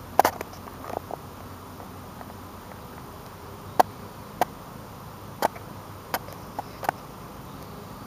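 A series of short, sharp clicks at irregular intervals, about eight in all, over a steady faint background hiss.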